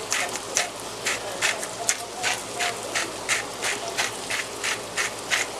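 Salt being added to the pot by hand in quick, even strokes, about three a second, a dry gritty sound repeated some fifteen times.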